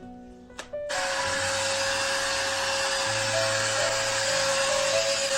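A 5-in-1 blow dryer switches on about a second in and runs steadily: a loud rush of air over a constant motor whine. Soft background music continues underneath.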